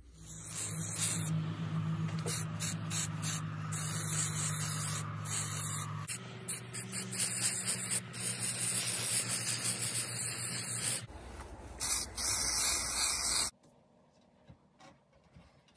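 Aerosol can of Rust-Oleum Aircraft Remover paint stripper spraying onto metal fan blades: a loud hiss broken by short pauses, with a low hum beneath it. It stops suddenly near the end.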